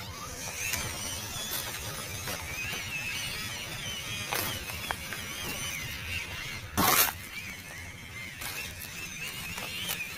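Whine of a 1/12-scale MN99 RC crawler's electric motor and gearbox, its pitch wavering up and down as the throttle changes while it climbs over logs. A short loud knock about seven seconds in, with a smaller one a few seconds earlier.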